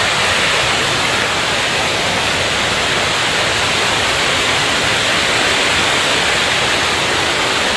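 Fast, swollen river in flood rushing, a loud steady roar of water.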